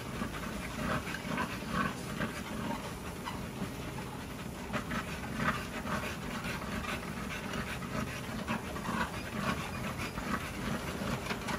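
American Bully dog panting steadily with its mouth open as it walks on a running treadmill.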